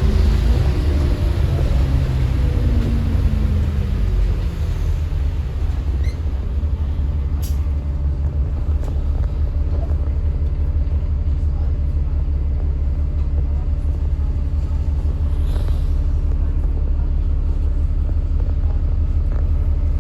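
Alexander Dennis Enviro 400 MMC bus engine running, with a whine that falls in pitch over the first few seconds and then settles into a steady low rumble. A single sharp click comes about seven seconds in.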